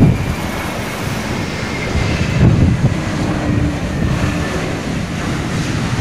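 Strong gusting wind buffeting the microphone in uneven low rumbles, with a landing Airbus A320-family jet's engines faintly whining underneath.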